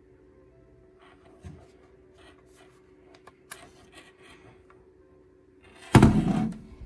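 Handling noise: faint rubs and light clicks against a low steady hum, then about six seconds in a short, loud rustling rub as the speaker's cable or the recording phone is handled.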